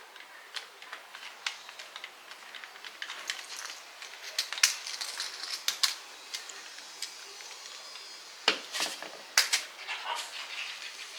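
Small hand-work noises: scattered light clicks and taps over a faint rustle, with a few sharper knocks about halfway through and around eight and a half and nine and a half seconds in. No motor is running.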